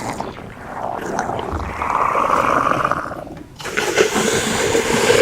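Two dinosaur roar sound effects, one after the other: a harsh, higher roar, then a lower, rougher one.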